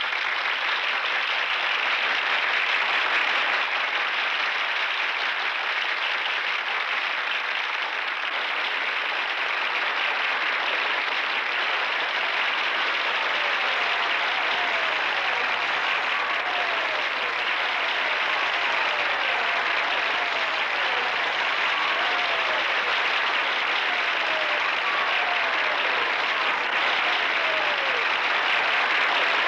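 Theatre audience applauding steadily. Over the second half, a string of short falling calls rises above the clapping.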